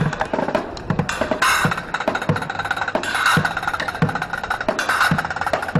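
Street bucket drumming: drumsticks beat a fast, busy rhythm on upturned buckets, with deep bucket thumps underneath. Cymbals lying flat on the pavement crash a few times.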